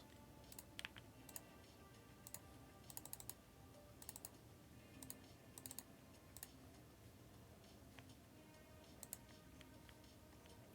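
Faint computer keyboard and mouse clicks: scattered single keystrokes and a few short runs of typing.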